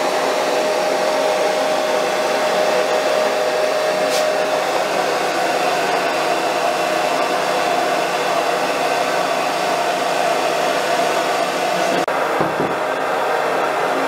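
Electric blower running steadily: a constant rush of air with a steady motor whine.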